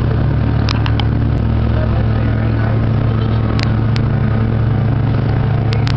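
Boat motor running steadily at an even pitch, with a few short sharp ticks over it.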